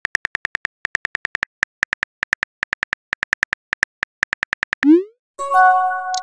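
Rapid, uneven keyboard click sounds of a phone texting app as a message is typed out, then near the end a short rising swoosh and a ringing chime as the message is sent and appears in the chat.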